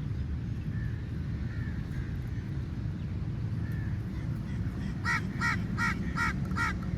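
A crow cawing in a quick run of six harsh calls, about three a second, starting about five seconds in. Fainter calls are heard earlier, over a steady low rumble.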